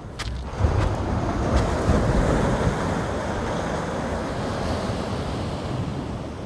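Wind rushing and buffeting on the phone's microphone, a steady noisy rush with low rumbling gusts that swells up about half a second in.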